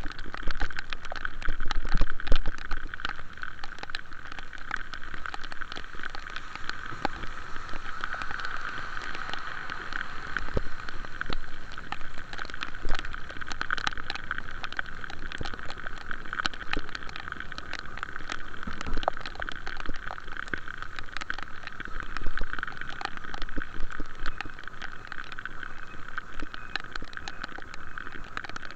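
Rain falling during a ride on the road, with many sharp drops ticking close by over a steady hum and road noise.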